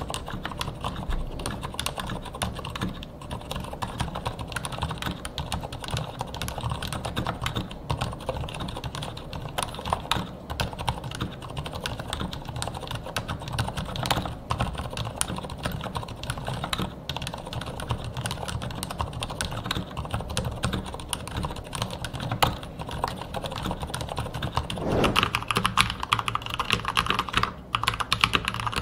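Steady typing on a fully lubricated Marspro mechanical keyboard with Shooting Star silent red linear switches: soft, muted keystrokes with no spring ping. About 25 seconds in it changes to brighter, louder typing on other switch types.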